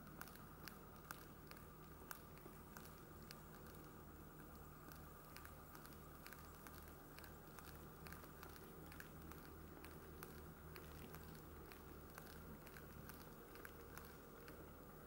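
Faint, irregular clicking and crackling of thin skim ice and slush shifting on a freezing lake's edge, several small ticks a second over a faint steady hum.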